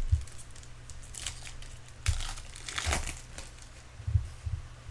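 Foil trading-card pack wrapper crinkling and tearing open in several short rips, with a few soft knocks from handling.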